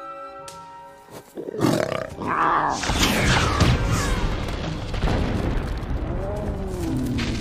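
Animated-film dragon roar over orchestral music: a loud roar comes in about a second and a half in and carries on, with a call that rises and falls in pitch near the end.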